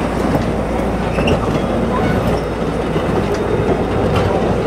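Railway passenger coaches and a caboose rolling slowly past close by: a steady rumble of steel wheels on rail, with wheel clicks about once a second and a short wheel squeal about a second in.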